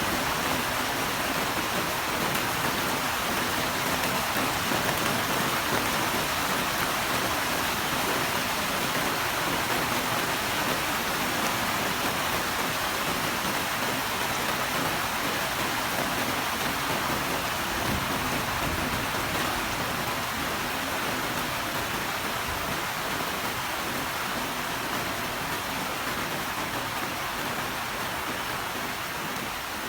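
Heavy rain pouring steadily, easing slightly toward the end, with a brief low rumble about two-thirds of the way in.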